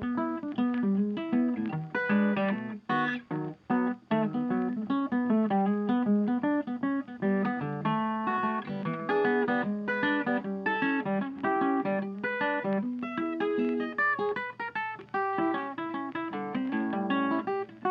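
Background music: acoustic guitar blues, plucked and strummed notes over a walking bass line.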